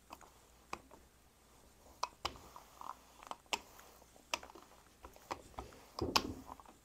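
Rolling pin working a sheet of dough on a wooden workbench: faint, irregular clicks and light knocks, with a louder cluster about six seconds in.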